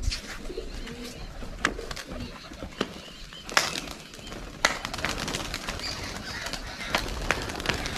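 Domestic pigeons cooing and flapping their wings, with a few sharp clicks scattered through it.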